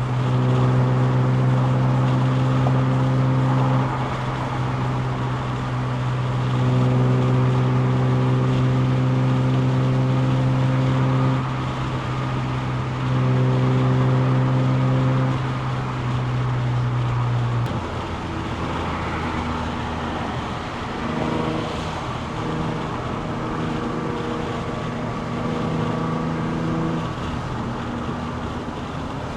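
Nissan 350Z's VQ35DE V6 with an aftermarket Y-pipe exhaust, driving: a steady, loud drone that swells and eases several times with the throttle. About two-thirds of the way through the drone stops and a lower, changing engine note takes over.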